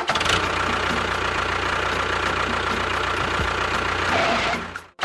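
A small motor running steadily, with a constant whine over a low rumble, cut off abruptly at the end.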